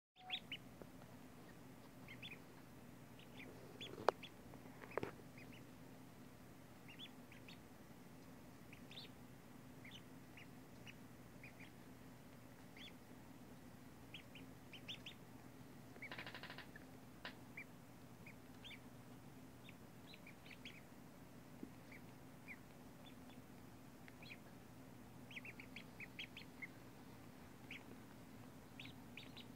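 Day-old Magpie and Cayuga/Rouen cross ducklings peeping: short, high chirps scattered throughout, over a steady low hum.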